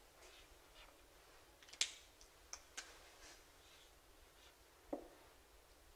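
Faint marker strokes and taps on a whiteboard: a few short, scattered clicks, the loudest just under two seconds in.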